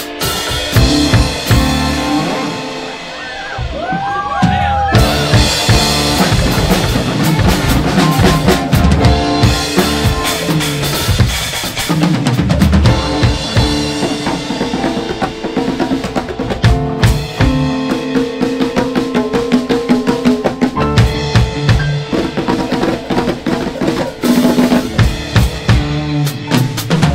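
Live band playing an instrumental passage: a drum kit drives it with busy bass drum, snare and rimshot hits over sustained notes from the band (piano, electric guitar, bass). The playing thins out about two seconds in, with a few bending notes, then the full band comes back in.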